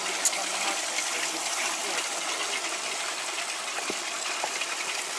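Steady rush of water gushing from the sewage treatment station's pump outlet while the pump runs flat out under test flow.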